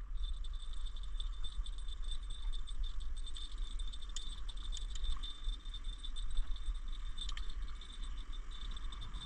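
Wind rumbling on the microphone, with a faint steady high-pitched whine and a few scattered light clicks.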